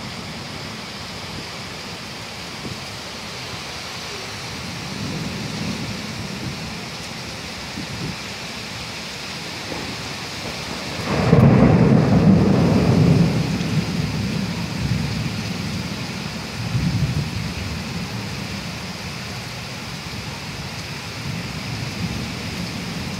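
Heavy rain pouring steadily, with a loud rumble of thunder about halfway through that starts suddenly and dies away over a few seconds, and a smaller rumble shortly after.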